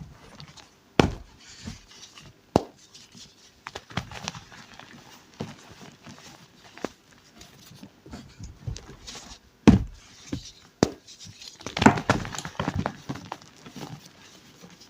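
Blocks of reformed gym chalk being crushed: sharp isolated cracks and crunches, with a dense run of crumbling crunches about twelve seconds in.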